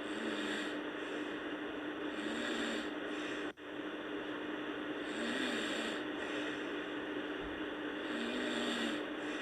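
A sleeping girl snoring softly in slow, regular breaths, about one every three seconds, over a steady hiss and a low hum. The sound drops out for an instant about three and a half seconds in.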